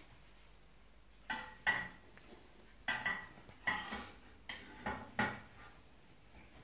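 Stainless steel cooking pot clanking and clattering as things are handled in it: a run of about eight sharp metal knocks, several ringing briefly, starting a little over a second in and stopping about five seconds in.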